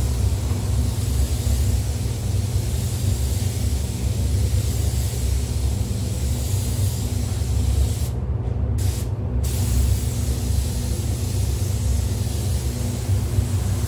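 Compressed-air spray gun hissing steadily as it sprays a car body panel over a steady low rumble. The hiss cuts out briefly twice a little past halfway.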